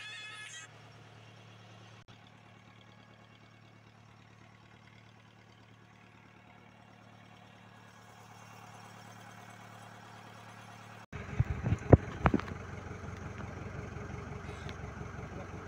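Fishing boat's engine running as a faint steady low hum, then much louder after a sudden change about eleven seconds in, with several sharp knocks in the second after the change.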